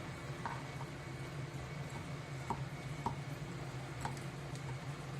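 A few faint clicks of a kitchen knife against a cutting board while a conger eel is being cut, over a steady low hum.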